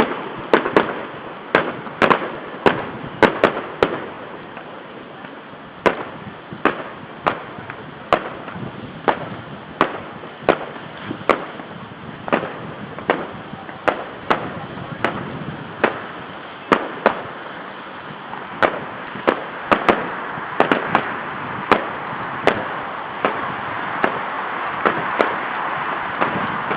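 Fireworks salute going off: a long run of sharp bangs, about one to two a second, over a steady background rumble that grows louder near the end.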